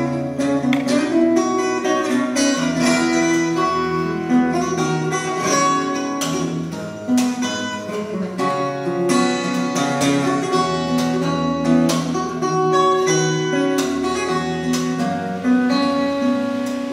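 Solo steel-string acoustic guitar played fingerstyle: a picked melody over bass notes, broken by frequent sharp strummed or struck accents.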